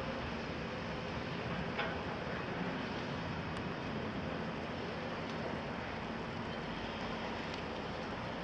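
Heavy construction machinery on a demolition site running steadily at a distance: excavator diesel engines and hydraulics as an even rumble, with a faint clank about two seconds in.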